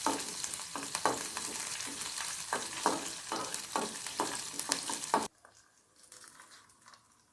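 Tempering sizzling in hot oil, with mustard seeds, cumin, pepper and curry leaves spluttering and crackling in frequent sharp pops. The sizzle cuts off suddenly about five seconds in.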